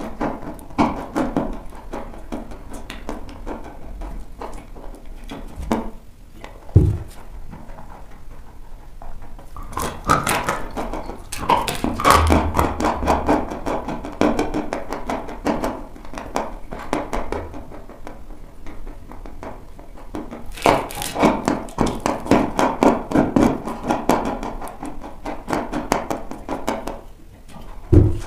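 Close-miked bites and chewing of dry chalk: crisp crunching and crackling in two longer bouts, with single sharp crunches about seven seconds in and near the end.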